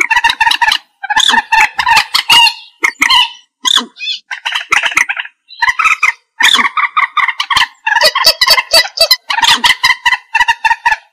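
Common moorhen calling: loud runs of rapid, repeated clucking notes in clusters of about a second, separated by brief gaps.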